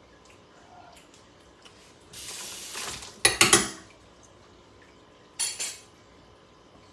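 Kitchen utensils and containers being handled: about a second of rustling, then a quick run of sharp, ringing clinks, and two more clinks about two seconds later.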